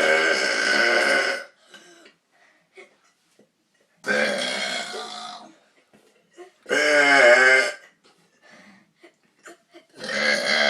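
Deliberate, drawn-out burps in a burping contest. One trails off about a second and a half in, another comes about four seconds in, a shorter one near seven seconds, and a fourth starts near the end, with near quiet between them.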